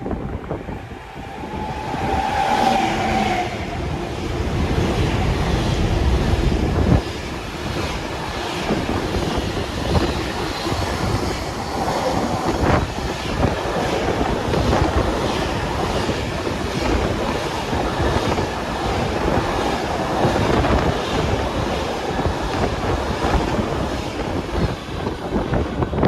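Direct Rail Services freight train passing through the station: a long run of wagons rumbling and clattering over the rails, the noise rising about a second and a half in and carrying on steadily. A brief high tone sounds about two seconds in.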